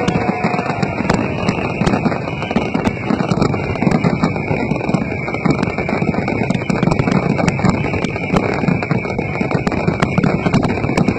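Fireworks display going off in a dense, continuous barrage: heavy booming bursts under rapid crackling pops.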